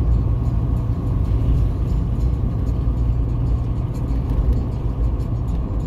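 A car driving on a paved road, heard from inside the cabin: a steady low rumble of engine and tyres.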